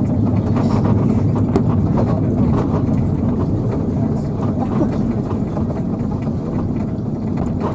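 Cabin noise of an Airbus A330-300 rolling out on the runway just after landing: a steady low rumble from the engines and wheels, easing off slowly as the aircraft slows. The recording is loud and distorted.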